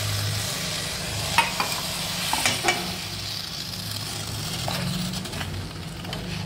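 A wooden spatula stirs and scrapes a thick coconut paste through boiled tuber pieces in a stainless steel pot, knocking against the pot a few times about one and a half to three seconds in. A steady low hum and hiss run underneath.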